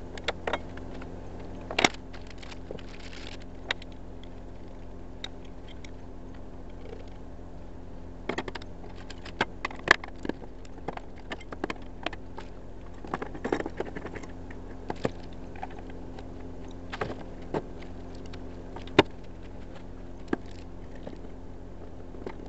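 Parts of a security floodlight fixture being handled on a steel saw table: irregular clicks and clatters of plastic and metal pieces and rustling plastic packaging, with a few sharper knocks, over a steady low hum.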